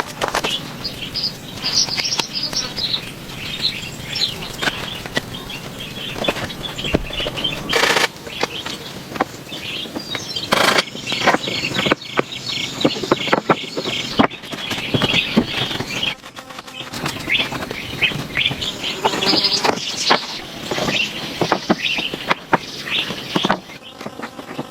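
Birds chirping, with many irregular knocks and rustles alongside.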